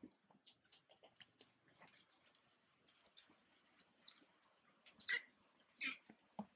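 Dry leaf litter crackling faintly under a pig-tailed macaque's footsteps, in many small scattered clicks. A few louder, short high-pitched sounds stand out about four, five and six seconds in.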